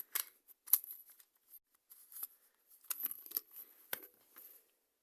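Clicks and scrapes of plastic fire-detector housings and parts being handled, in two bunches: one at the start and one about three seconds in.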